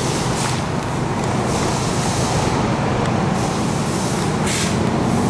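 Engine of a propane-fuelled Hyster forklift running with a low, steady hum, with a few short hisses over it.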